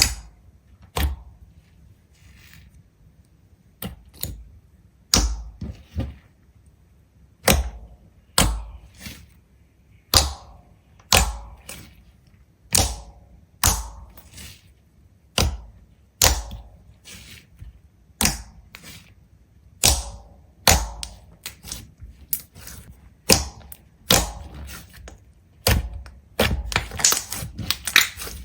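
A long irregular series of sharp knocks and cracks, about one a second, some with a short scraping tail, coming thicker and faster near the end.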